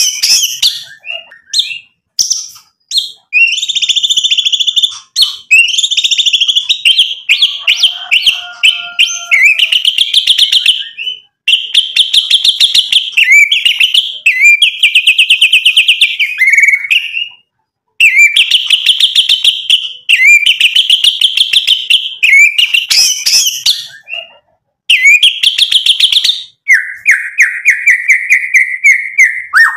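White-rumped shama (murai batu) singing loudly at full song: fast runs of sharp repeated notes and trills, phrase after phrase with short pauses, ending in a long held whistle.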